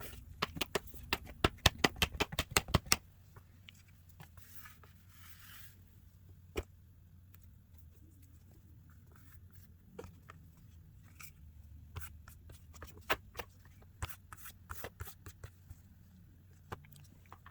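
Small tools and phone parts being handled: a fast run of sharp clicks for about the first three seconds, then scattered light taps and ticks.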